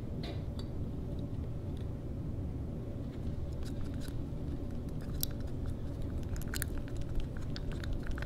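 A stir stick clicking and scraping against the sides and bottom of a small mixing cup while two-part epoxy resin and hardener are stirred together. The clicks come in quick irregular runs, mostly in the second half, over a steady low background rumble.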